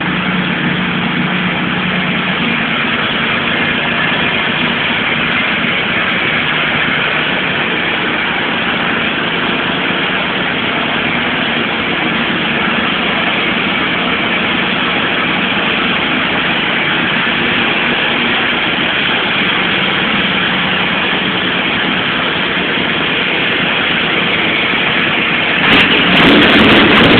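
Shelby Cobra 427's V8 engine running at a steady idle, getting louder about a second and a half before the end.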